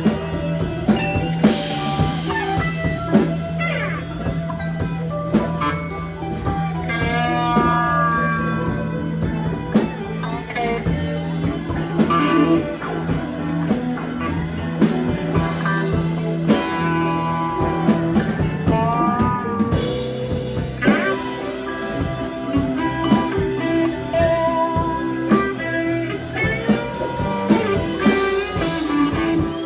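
Live band playing blues-rock: guitar with bending notes over bass and drum kit.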